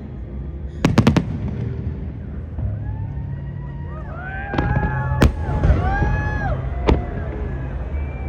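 Fireworks going off: a quick cluster of sharp bangs about a second in, then several whistles gliding in pitch mixed with more single bangs through the middle of the stretch.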